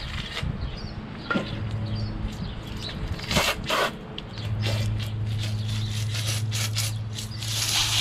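Water spraying from a hose wand onto a push lawn mower, spattering and hissing off the deck in bursts, the strongest about three and a half seconds in and near the end. A steady low hum drops out near the start and again about two seconds in, then holds from about four and a half seconds on.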